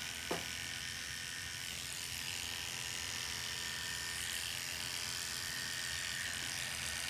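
Electric hair clippers buzzing steadily as they clip the hair of the scalp's donor region short.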